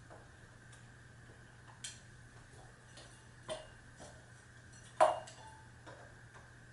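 Hunter Original ceiling fan coasting down after being switched off, giving a sharp click every second and a half or so, the loudest about five seconds in.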